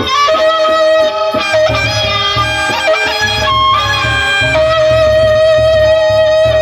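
Sasak gendang beleq music in an instrumental break between sung verses: a melody instrument steps through notes and then holds one long note from about halfway through, over a steady pulse of low drum beats.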